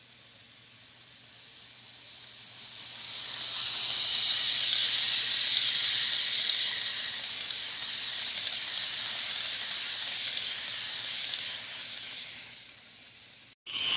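HO-scale model passenger train rolling past on its track, a steady hiss of the wheels and running gear that builds over the first few seconds, holds while the cars go by, then fades away near the end.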